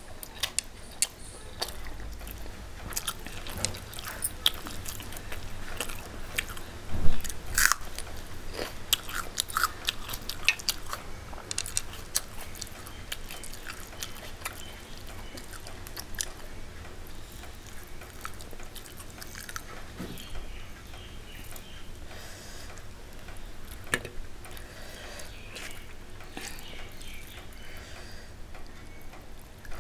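Chewing and biting sounds of a person eating rice with curry and a crunchy fried topping by hand. Many short mouth clicks, with a louder burst about seven seconds in.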